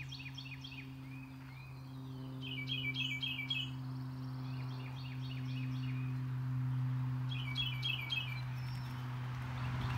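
Songbirds singing. One bird gives a short phrase of quick repeated notes about three seconds in and again near eight seconds, with softer chirps between, all over a steady low hum.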